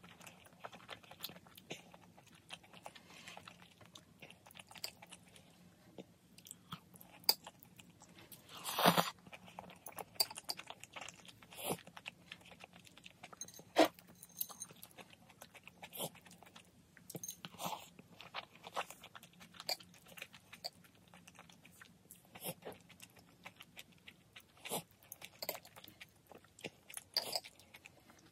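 Close-miked eating sounds: chewing and slurping spicy instant noodles with fried spam and egg, with scattered short clicks of metal chopsticks against the ceramic bowl. One longer, louder slurp about nine seconds in.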